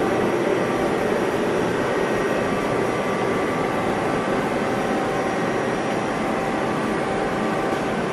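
Mazak Multiplex 4200 CNC lathe running under power: a steady mechanical hum and rush with faint constant whining tones, no strokes or changes.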